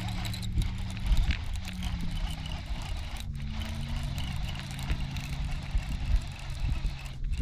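Electric trolling motor humming at the bow, its pitch stepping up and down as the motor's speed changes. Wind rumbles on the microphone.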